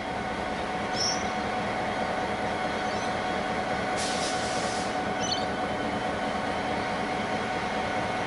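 Diesel-electric freight locomotives idling in a steady drone with a constant whine, the G-class and S-class units of a paper train nearest. A brief hiss about four seconds in, and a few short high chirps now and then.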